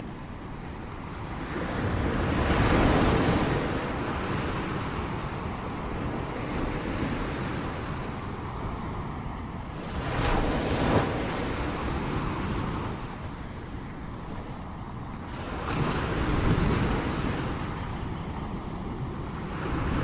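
Ocean waves washing against a shore: a steady hiss of surf that swells and falls back three times, about two seconds in, near the middle, and about three-quarters of the way through.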